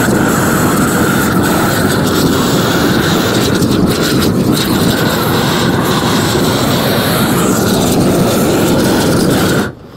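Propane roofing torch burning at full flame with a steady, even rush, melting the underside of a torch-down modified-bitumen roll so it bonds to the roof as it is unrolled. The sound cuts off suddenly near the end.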